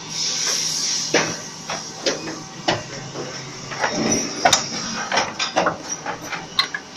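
Pneumatic assembly machine for glass-door floor springs cycling. A hiss of compressed air in the first second, then a run of irregular sharp metallic clicks and knocks as its cylinders and press heads move.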